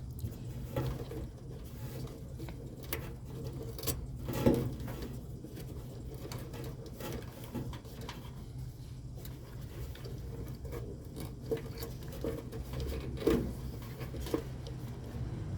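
Steady low electrical hum of the running air-conditioning condensing unit, its new compressor contactor pulled in, with irregular light clicks and taps over it, two louder ones about four and a half seconds in and near the end.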